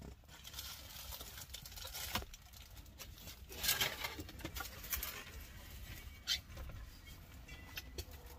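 Hands handling and wiping plastic dash instrument-cluster parts: irregular clicks and taps, with a busier stretch of rubbing about three and a half seconds in.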